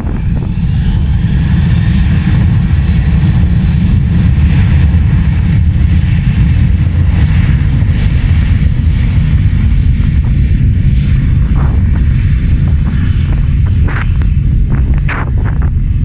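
Passenger aircraft's engines running as it passes, a loud, steady low rumble with a faint whine gliding in pitch in the first few seconds. A few short sharp sounds come near the end.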